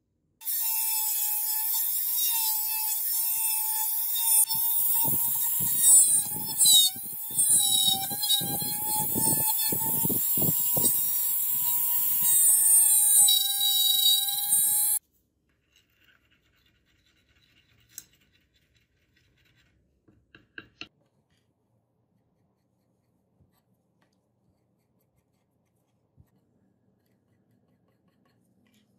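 Electric drill motor running with a steady high whine as its bit bores into a wooden handle block, with a rough cutting rasp in the middle stretch while the wood is hollowed out. The sound cuts off abruptly about halfway, leaving near silence with a few faint clicks.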